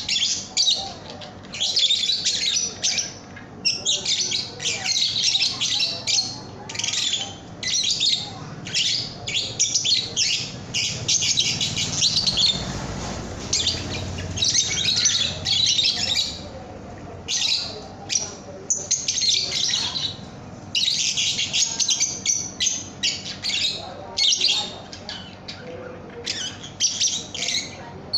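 Young lovebirds chattering: rapid, high-pitched chirps and squawks in dense bursts separated by brief pauses.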